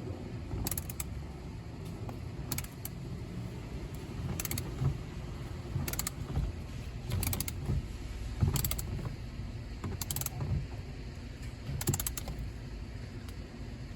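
Socket ratchet wrench with an extension tightening a seat belt anchor bolt: repeated strokes, each return stroke giving a short run of fast pawl clicks, about every one to two seconds.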